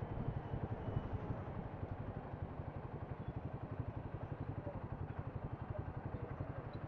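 Royal Enfield Himalayan's single-cylinder engine running steadily with an even pulse, heard from the moving bike along with road and traffic noise.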